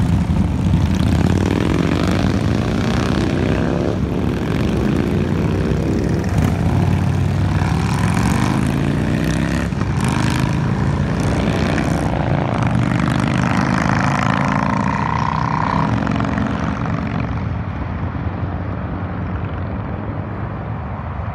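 Several motorcycles accelerating past one after another, their engine notes rising in pitch as each pulls away. The sound thins and grows quieter in the last few seconds as the bikes move off.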